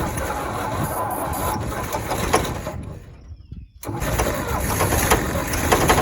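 The baler's gas engine is being cranked on the starter and will not keep running, with a break of about a second partway through. This is typical of an engine that has either lost spark or fuel.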